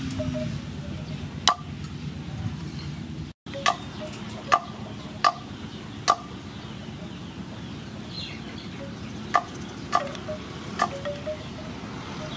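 Steel cleaver chopping palm sugar on a wooden cutting board: sharp chops at an uneven pace, about eight in all with a pause in the middle. Each chop has a short metallic ring from the blade.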